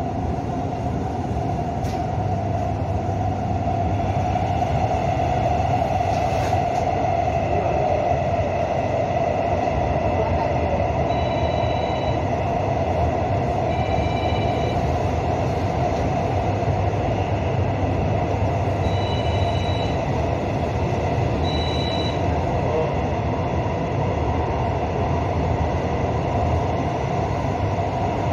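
Seoul Subway Line 4 electric train running on the Jinjeop Line, heard from inside the car: a steady rolling rumble as it travels into a tunnel. A few short high beeps sound around the middle.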